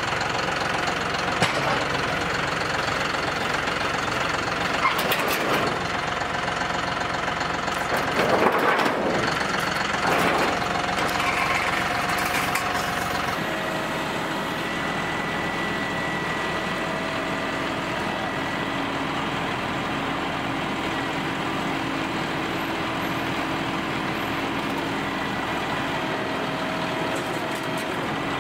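John Deere utility tractor's diesel engine running steadily, with several knocks and metal clatters in the first half as debris is handled on its front-loader grapple, the loudest about eight seconds in. About halfway the sound turns smoother and steady, with a faint held whine as the loader arm raises the load.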